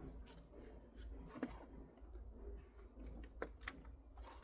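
Faint rustling and scattered light clicks and knocks of hands sifting through compost and handling harvested potatoes.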